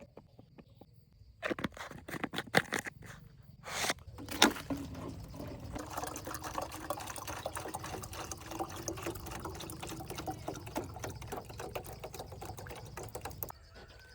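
A few knocks and clatters of handling, then water pouring steadily for about nine seconds before it stops abruptly.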